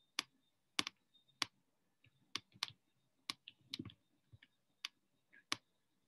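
Stylus tip tapping on a tablet's glass screen during handwriting: about fifteen faint, sharp clicks at an irregular pace.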